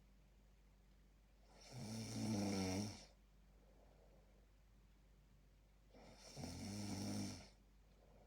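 A sleeping person snoring: two long, buzzing snores about four seconds apart.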